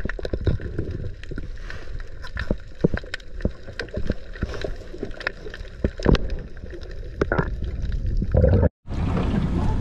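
Underwater sound from a camera housing on a night dive: a muffled low rumble with frequent sharp clicks and knocks, and bubbles. Near the end the sound cuts out for a moment, then a steady open-air hiss follows.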